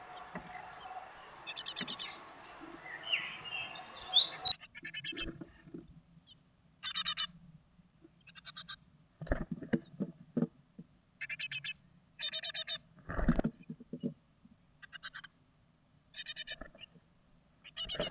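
Great tit nestlings about to fledge, calling from inside a wooden nest box. Their short buzzy calls come about once a second, mixed with scratches and knocks as the chicks scramble and flap against the wood; one knock about 13 seconds in is the loudest sound. The first few seconds are steady outdoor noise with a bird note or two.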